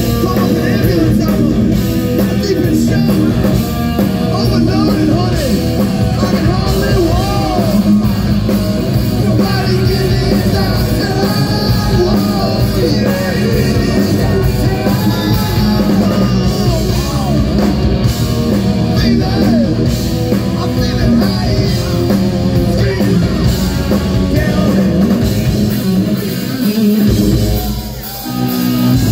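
Live hard rock band playing loud through an outdoor PA: electric guitar, bass and drums with a singer's vocals. The music drops briefly near the end before the guitar comes back in.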